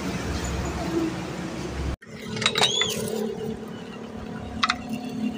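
Steady outdoor workshop background noise that stops at an abrupt cut, followed by a few sharp metallic clinks and a short rising-and-falling squeak, with two more clicks near the end, as the screw clamp on the patched inner tube is handled.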